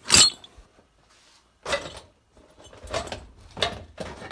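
Metal hole saws and drill bits clinking and rattling against each other as a hand rummages through a zippered canvas tool pouch: a sharp clatter at the start, another about a second and a half later, then a longer stretch of handling near the end.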